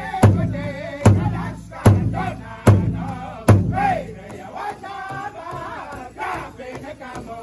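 Powwow drum group singing a high-pitched chant in unison over a big powwow drum struck together by several sticks, about one beat every 0.8 seconds. The drumming stops about three and a half seconds in and the voices carry on alone.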